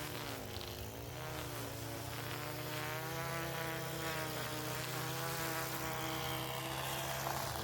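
Small engine of a handheld lawn power tool running with a buzzing note, its pitch dipping briefly about half a second in and then slowly climbing; a steady lower hum runs underneath.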